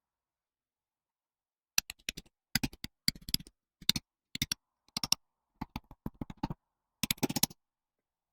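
About eight short bursts of rapid clicking and tapping from hand-tool work on a Land Rover Series 2 differential's seal holder.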